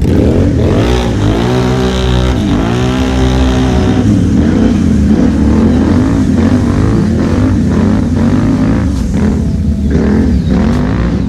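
ATV engine heard from on board, revving and easing off over and over so its pitch rises and falls as the quad drives through tall grass.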